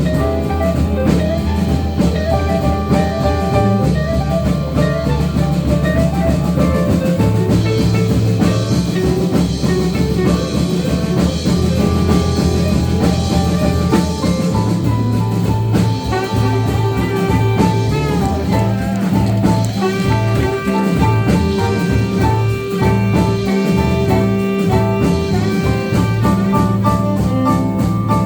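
A jazz-soul band playing an instrumental passage: drum kit and bass under long held lead notes, with horns in the mix.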